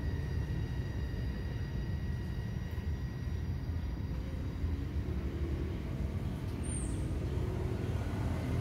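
Steady low outdoor rumble, with faint steady high-pitched tones above it and one brief high chirp near the end.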